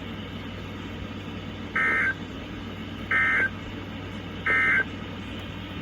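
Emergency Alert System end-of-message data tones: three short identical bursts of warbling digital SAME code, each about a third of a second long and about 1.3 seconds apart, heard over a radio receiver's steady low hum. They mark the end of the tornado warning broadcast.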